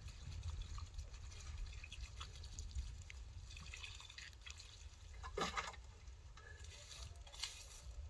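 Water pouring from a plastic watering can onto freshly dug soil, trickling and dripping.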